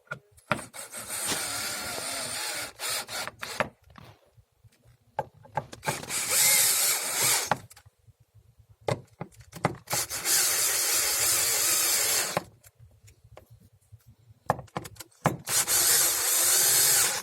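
Cordless drill with a Torx 30 socket bit driving bolts into a portable chiropractic table, running in four separate bursts of a few seconds each, with short clicks and knocks of handling between them.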